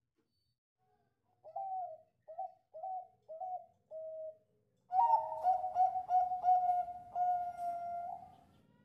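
Bangkok-line zebra dove (perkutut) cooing: about five short rolling notes, then from about five seconds in a louder run of quick notes that ends in one long held note.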